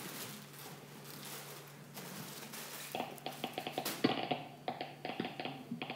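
Geiger counter clicking irregularly as it registers radiation, a recording played back through small loudspeakers. A hiss at first, then random clicks start about three seconds in.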